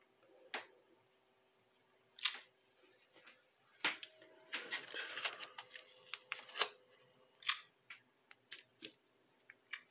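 Handling noise: scattered clicks and knocks, with a stretch of rustling about halfway through, as the filming device and the small electronics and cables on the desk are moved about.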